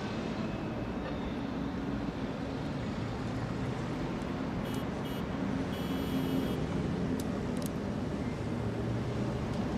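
Steady city street traffic noise, with a few short high tones about five to six and a half seconds in.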